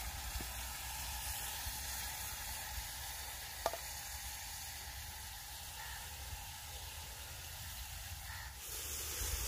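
Onion-tomato masala sizzling steadily in a pot over a wood fire as yogurt is poured in. One short knock a little before halfway.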